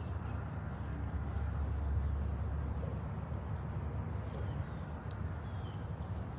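Outdoor ambience: a steady low rumble, with short high chirps from a small bird about once a second.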